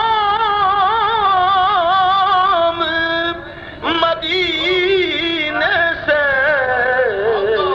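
A naat reciter's solo voice singing a devotional naat in long, wavering held notes, with a short pause near the middle.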